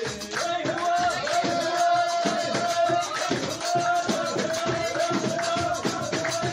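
Live music played in the room: a hand drum beaten and hands clapping in rhythm, under a melody held in long, sustained notes.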